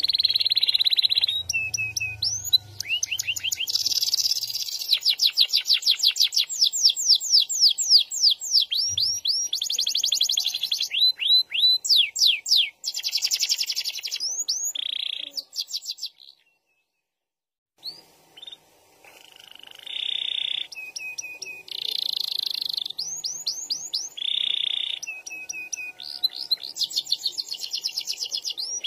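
Orange domestic canary singing a loud, long song of rapid trills and rolls, runs of fast repeated rising notes. The song breaks off for about a second and a half a little past halfway, then starts again.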